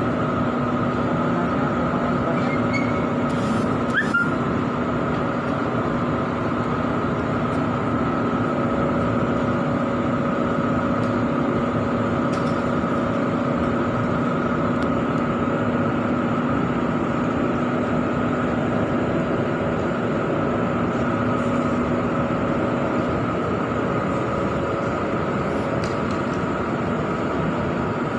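Steady machine hum: a constant rushing noise with several steady tones, the lowest of which stops near the end. A brief rising squeak sounds about four seconds in.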